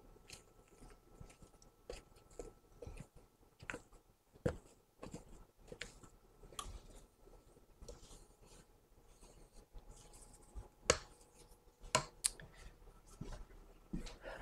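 A spatula folding and scraping macaron batter around a stainless steel mixing bowl, the hand-mixing (macaronage) stage: faint, irregular scrapes with sharper knocks against the bowl, the loudest a few about eleven to thirteen seconds in.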